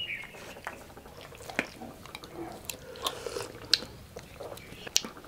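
Yellow Labrador retriever licking and smacking its lips in small irregular wet clicks while nosing at a piece of pork bone too hot to eat.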